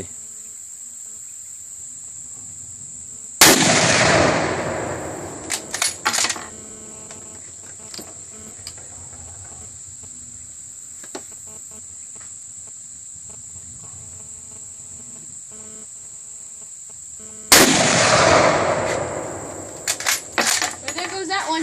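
Two shots from an 8mm Mauser rifle, about 14 seconds apart, each echoing away over a couple of seconds, with a few sharp clicks after each shot. A steady high insect buzz runs underneath.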